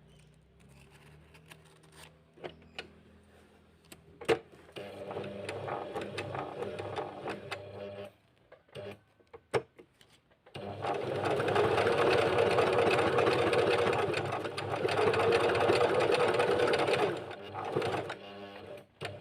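Portable sewing machine stitching a buttonhole, running in two spells: a shorter, softer one about five seconds in and a longer, louder one from about ten to seventeen seconds, with sharp clicks before and between them.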